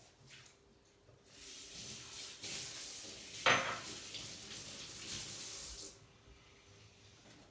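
Tap water running into a sink for about four and a half seconds as a small die-cast model car is rinsed under it, with one sharp knock about halfway through; the tap is then turned off.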